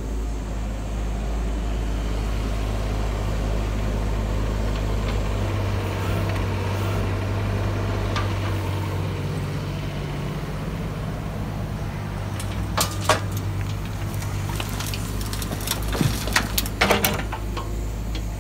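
Bobcat E19 mini excavator's diesel engine running steadily under hydraulic load, its note shifting about five seconds in. Later come two clusters of sharp knocks and scrapes as the bucket and dropped soil hit the tipper truck's bed.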